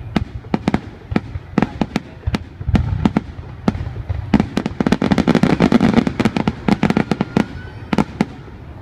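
Aerial fireworks shells bursting in rapid succession, a steady string of sharp bangs that thickens into a dense barrage about halfway through, then stops shortly before the end.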